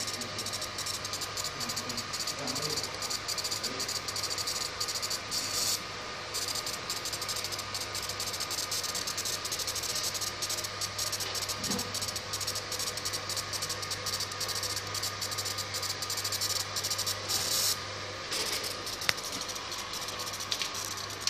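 Flying laser marker engraving text onto a moving PVC pipe: a dense crackling hiss over a steady machine hum. The crackling breaks off briefly twice, about six seconds in and again near eighteen seconds.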